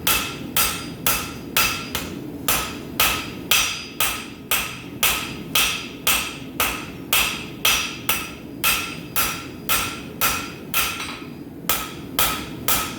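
Blacksmith's hand hammer striking hot steel bar on an anvil in a steady rhythm of about two blows a second, each blow with a short metallic ring, drawing out the metal. There is a brief pause about eleven seconds in before the blows resume.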